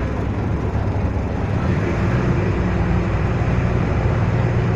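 Low, steady drone of a river ferry's engine running, growing a little louder about halfway through.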